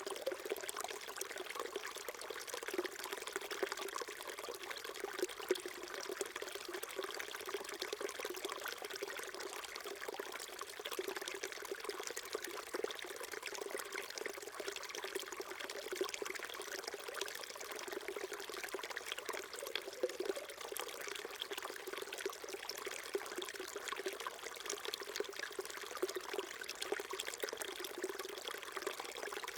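Small stream babbling and trickling over rocks, a steady burbling flow with small splashes.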